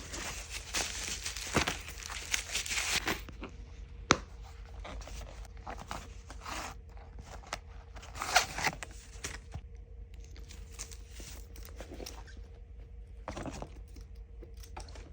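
Packaging being unwrapped by hand: wrapping crinkles and tears in a dense stretch at the start, then rustles off and on. There is one sharp click about four seconds in and a louder rustle around the middle.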